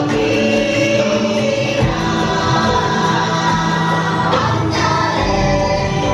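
Choral music: a choir singing long held chords over a steady instrumental backing.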